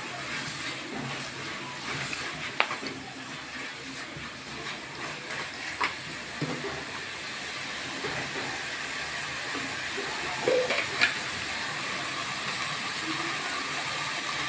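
Onion-tomato masala frying in oil in an aluminium kadhai: a steady sizzling hiss, with a few sharp knocks of the spatula against the pan about two and a half, six and eleven seconds in.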